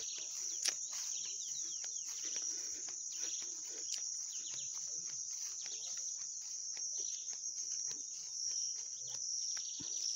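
A steady, high-pitched drone of insects, with many short falling chirps and scattered ticks over it and one sharp tap just under a second in.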